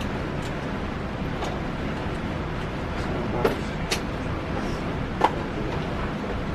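Steady background rumble at a gun range, broken by a few sharp cracks, the loudest about five seconds in: muffled gunshots.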